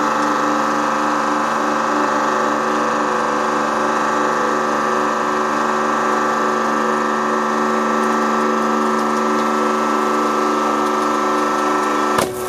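Hydraulic press pump running with a steady hum as the ram slowly squeezes a stack of plastic water bottles. Near the end there is one sharp crack as the plastic gives way under the load.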